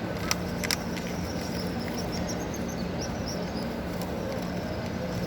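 Busy crowd ambience: a steady wash of background noise with a low, even hum, and two sharp clicks within the first second.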